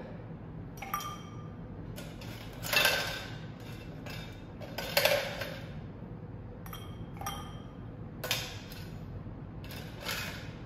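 Ice cubes dropped one by one with tongs into a stainless steel mixing tin, each landing as a separate clink with a short ring, the two loudest about three and five seconds in.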